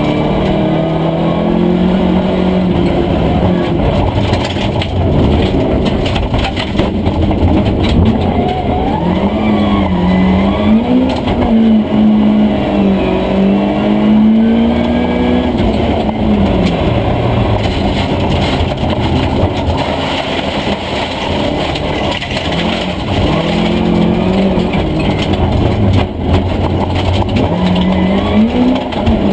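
Volvo 240 Group H rally car's engine heard from inside the cabin, revving hard and falling back repeatedly as it shifts and brakes on a gravel stage, with the constant rush of tyres and gravel under the car.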